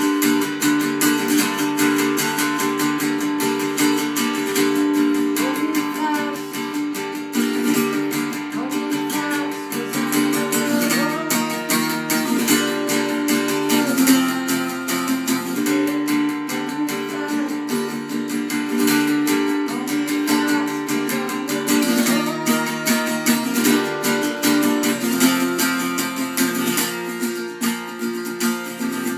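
Acoustic guitar with a capo on the third fret, strummed fast with steady down strokes only in 2/4 time through a changing chord progression.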